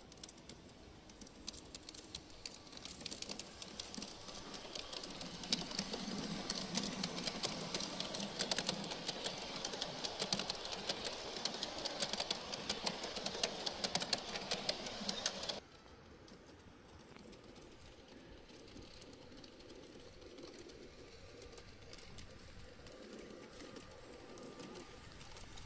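LGB G-scale garden-railway train rolling past close by, its wheels making a rapid clicking clatter over the track that builds up as it nears. About two-thirds of the way through the clatter cuts off suddenly, giving way to a fainter, steady clicking of a train running further off.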